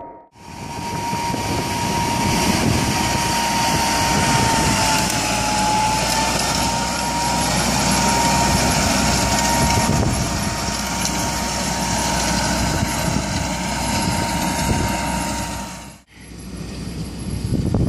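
John Deere 6430 tractor running under load as it pulls a Gaspardo Renata planter across the field, with a steady high whine over the engine. The sound cuts out about sixteen seconds in and quickly builds again.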